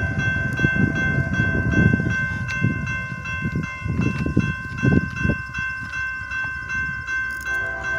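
Railroad crossing's GS type 2 electronic bell ringing a steady, unbroken tone while the crossing is active, over low rumbling noise.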